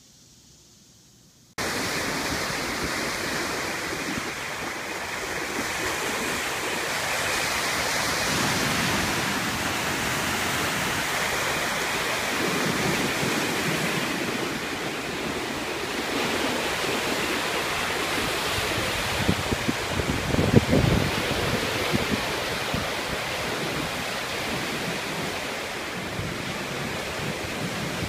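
Rough Lake Erie waves breaking and washing on the shore, a loud steady rushing that starts suddenly after a quiet second and a half. About twenty seconds in, a few gusts of wind buffet the microphone.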